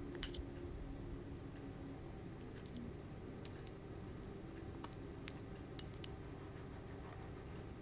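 A metal spoon clinking and tapping against a ceramic plate while cutting through a soft agar pudding, one sharp clink just after the start, then a few fainter light taps.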